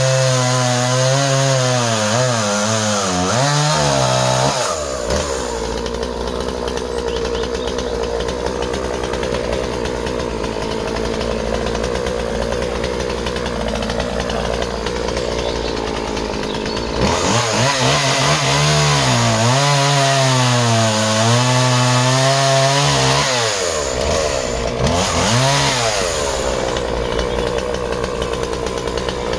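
Two-stroke chainsaw cutting through a log at full throttle. Its engine note wavers and drops as the chain bogs in the cut, then runs higher between cuts.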